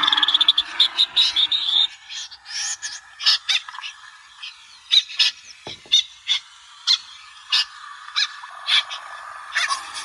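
Recorded snipe calls played as a bird-trapping lure: short, harsh calls repeated over and over. For the first two seconds they are dense and overlapping, then they come singly, about one or two a second.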